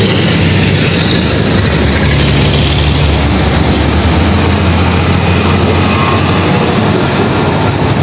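Heavy fuel tanker truck's engine running as the truck drives past close by, a steady low drone under broad road and engine noise.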